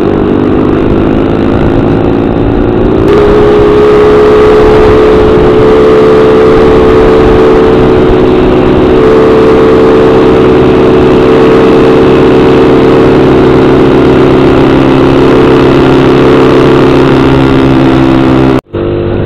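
Motorcycle engine running at a steady cruising speed, with road and wind noise. The engine note rises a little about three seconds in and then holds steady, and the sound cuts out abruptly for a moment near the end.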